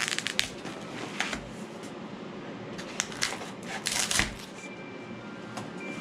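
Crackling and scraping of pink rigid foam board being pried and pulled out of a fresh hot-knife cut, in several short clusters, thickest a few seconds in, over a faint steady hum.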